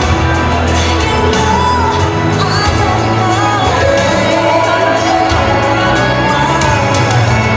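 Pop song with a singer's voice over a steady beat and bass, played over a sound system.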